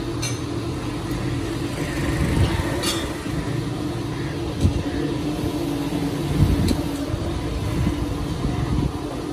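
Steady low mechanical hum and rumble, with a few sharp metallic clinks of a hand tool working against a crankshaft held in a lathe.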